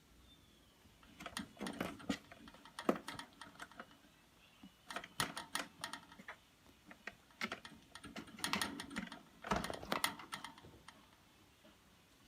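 Irregular bursts of sharp clicks and taps: cats' claws and paws scrabbling on a hard surface as they tussle, in several clusters with short pauses between.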